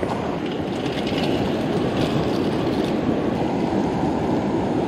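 Mountain river rushing steadily, an even wash of water noise, with a few faint clicks over it.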